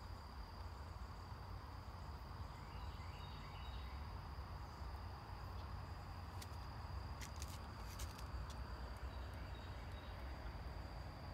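An insect singing one steady, high, unbroken note over a low rumble of outdoor ambience, with a few faint sharp clicks about six to eight seconds in.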